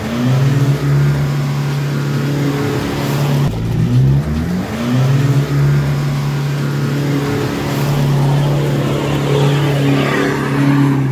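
Four-wheel-drive vehicle's engine revving up twice, about four seconds apart, and otherwise running at a steady pitch.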